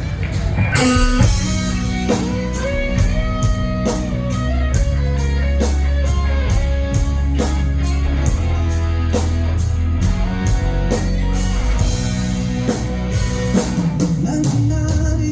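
Live rock band playing a song's instrumental intro: a drum kit keeping a steady beat with crisp cymbal hits, under bass and guitar playing the melody. It begins about a second in.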